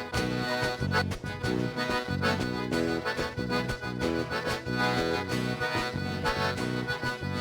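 Instrumental break of gaúcho dance music led by an accordion, over a steady bass beat.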